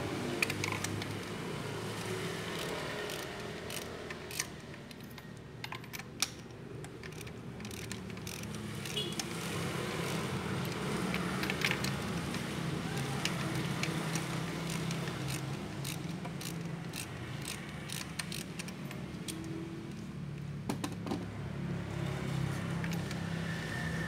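Scattered metallic clicks and clinks of tools and parts being handled during engine work, over a steady low hum.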